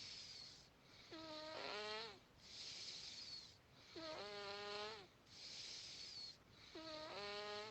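A man snoring in his sleep: a faint, rattling, pitched snore on each breath, three times about three seconds apart, with a breathy hiss between them.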